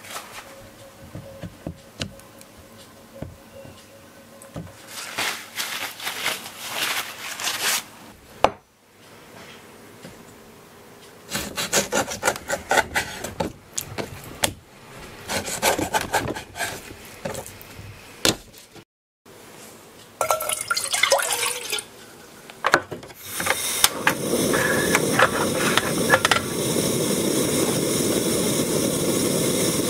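Hands handling fish in water and on a wooden cutting board, with scattered taps and rubbing. About 24 seconds in, a steady hiss starts as a pot of dashi heats on the stove.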